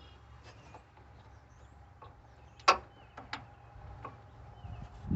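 A few sparse metal clicks and taps from fitting a truck battery's hold-down, with one sharper click a little past halfway. Faint bird chirps sound in the background.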